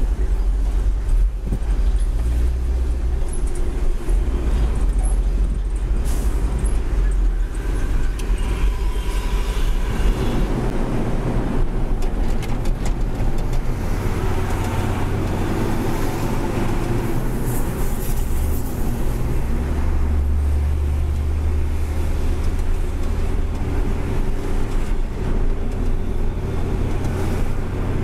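Hino 500 truck's diesel engine running under way, heard from on board along with tyre and traffic noise. The low engine drone rises and falls in pitch several times.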